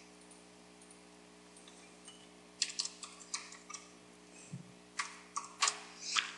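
Computer keyboard being typed on: quick, uneven key clicks starting about two and a half seconds in, over a faint steady hum.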